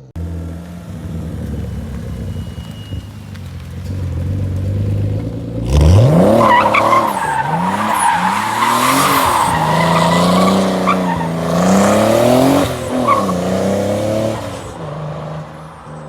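Car engine running steadily, then revved sharply about six seconds in and swinging up and down in pitch through repeated revs while the tyres squeal, for about nine seconds. Near the end it drops back to a steady lower run.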